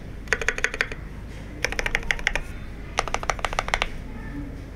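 Typing on a Tokyo60 keyboard with Marshmallow switches: three quick bursts of rapid keystrokes with short pauses between them.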